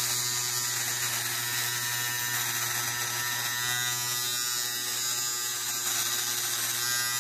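Philips BT1212/15 cordless beard trimmer running with a steady electric buzz as its blade trims beard stubble along the chin and jaw.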